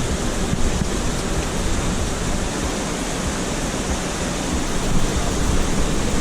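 Steady rush of a waterfall: falling water making a dense, even noise with a low rumble underneath.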